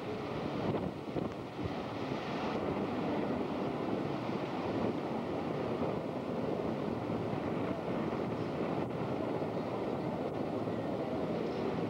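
Surf washing on a beach with wind blowing across a camcorder microphone, a steady rushing noise.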